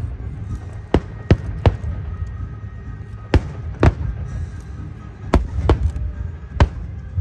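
Aerial fireworks shells bursting overhead: about eight sharp bangs at irregular intervals, over a steady low rumble.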